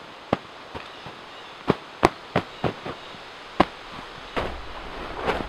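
Hands slapping and pressing a canvas bed sleeve stuffed with dry leaf litter and duff, spreading the filling even: a string of sharp, irregular slaps. Near the end comes a longer rustling of shifting leaves and canvas.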